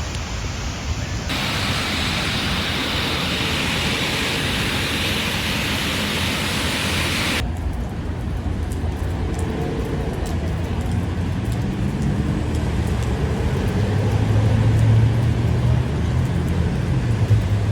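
A loud, steady rushing hiss of water, cut off abruptly about seven seconds in. After it a car engine runs under a fainter wash of noise, growing louder in the last few seconds.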